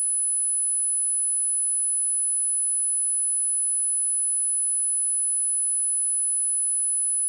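A steady 10077 Hz sine-wave test tone: one pure, high-pitched whistle held at an even level with nothing else.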